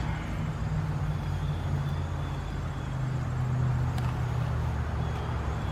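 A motor vehicle's engine running steadily, a low drone, with a faint click about four seconds in.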